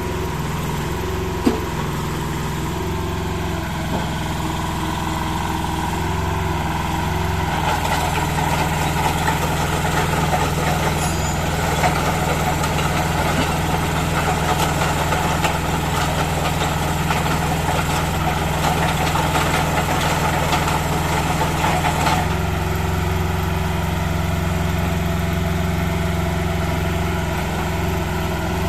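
IHI IS-008 mini excavator's diesel engine running steadily. From about seven seconds in until about 22 seconds in, the sound grows louder and rougher as the machine is worked, then settles back to a steady run.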